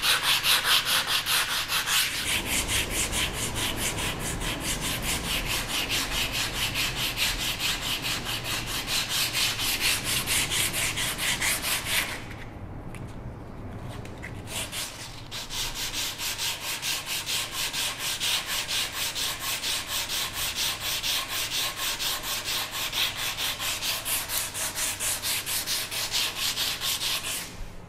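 Sandpaper on a hand pad rubbed over a wooden stool seat in rapid back-and-forth strokes, to sand off pencil lines. The sanding eases off for about three seconds near the middle, then resumes and stops just before the end.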